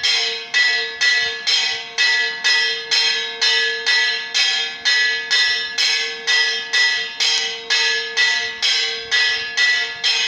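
A bell struck over and over at an even pace, a little over two strikes a second, each stroke ringing out before the next.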